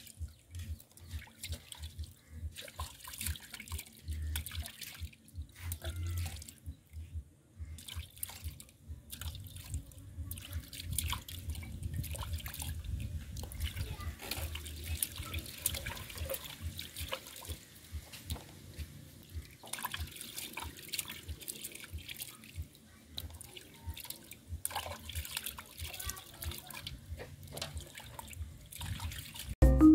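Water sloshing, splashing and dripping in a metal basin as small fish are rubbed and rinsed by hand, in irregular bursts throughout.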